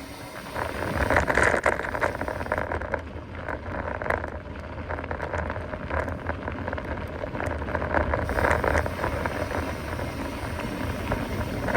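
A mountain bike rolling over rough ground: steady tyre noise with many small clicks and rattles, over a constant low rumble.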